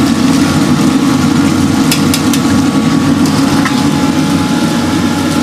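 Commercial wok stove's gas burner running with a loud, steady rush. Several sharp metal clinks from tongs and a strainer come about two seconds in.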